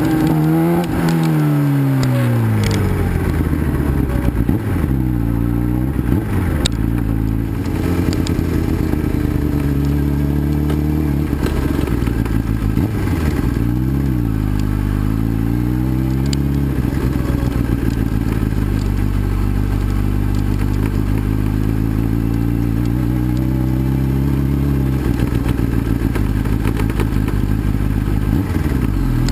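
2011 Kawasaki ZX-10R's inline-four engine revving up and down as the bike is ridden over a rough dirt track, holding steady for several seconds before easing off near the end. Scattered clatter and clicks of gravel and knocks from the bike run over it, mostly in the first half.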